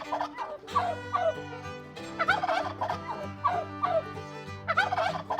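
Turkey gobbling repeatedly, in short bursts about once a second, over steady background music.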